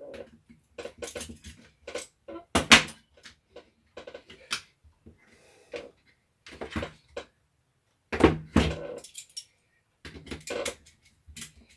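Irregular clicks and knocks of tools and the plastic drill housing being handled on a bench during disassembly. The two loudest knocks fall about a quarter of the way in and about two-thirds of the way in.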